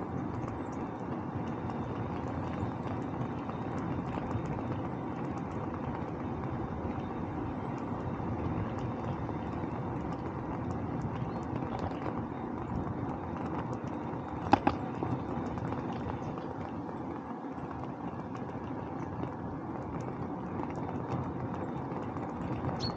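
Bicycle on the move: steady rolling and wind noise with faint scattered ticks, and one sharp click a little past halfway.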